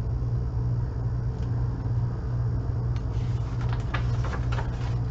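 Steady low hum with background rumble, and a few faint clicks and rustles between about three and four and a half seconds in.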